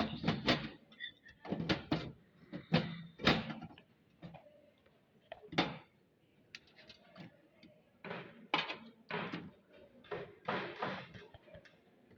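Irregular knocks and clatter of metal parts as a hard disk drive is fitted and screwed into a desktop computer's case.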